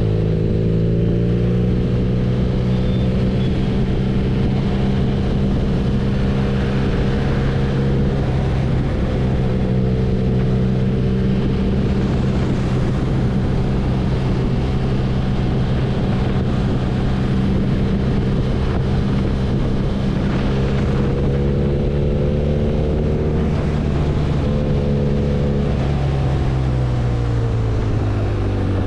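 BMW R nineT's boxer-twin engine running at a steady cruise, its note rising slightly at the start and falling away near the end as the bike slows, over wind and road noise.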